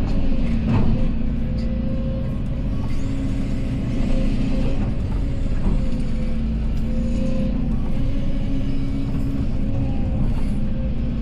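Excavator's diesel engine running steadily with a constant drone, with a few short knocks and clanks from the machine.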